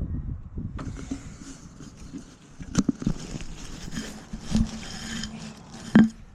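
Hand tools knocking and clinking on the truck's steering linkage during tie rod work, over a steady hiss. There are three sharper metallic knocks, the last the loudest.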